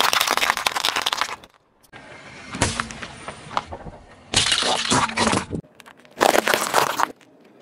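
A car tyre rolling over and crushing objects, cracking and breaking them in four separate bursts of crunching, each lasting about a second. The objects include a dry lasagna noodle snapping, a plastic Rubik's cube and a yellow squash.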